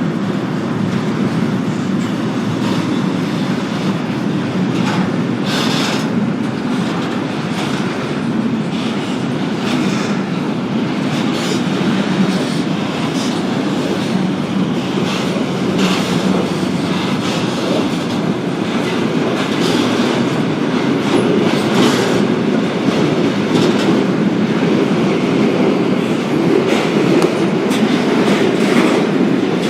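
Freight train rolling along the track: a steady rumble with the clickety-clack of wheels over rail joints, getting a little louder in the second half.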